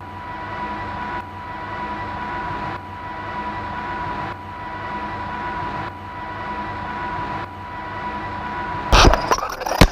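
Boat engine running steadily with rushing water and wind noise, a thin steady whine over a low drone. Two loud crackling bursts near the end.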